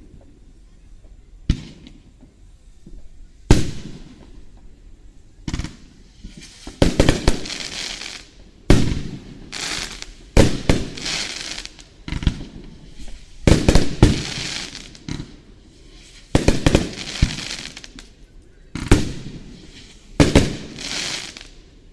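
Aerial firework shells bursting: single sharp booms a couple of seconds apart at first, then rapid clusters of bursts, each trailed by about a second of hissing crackle.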